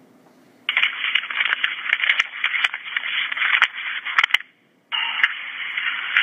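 Loud crackling, scraping noise over a telephone line, cutting in abruptly about a second in, dropping out for half a second near the end, then returning.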